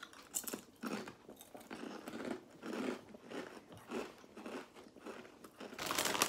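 Ridged potato crisps being bitten and chewed by two people: irregular crisp crunches with chewing between them. Near the end comes a louder crackle as a hand goes into the crisp packet.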